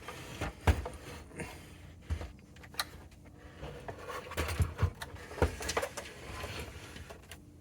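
Hands working a part loose inside an oscilloscope's chassis: scattered clicks, knocks and scraping of metal parts and wires being handled, with a sharper knock about a second in and a few more around the middle.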